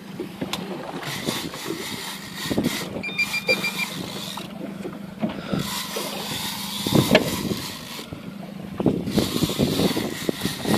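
Boat engine running steadily under irregular knocks and rustles. About three seconds in there is a short run of high electronic beeps.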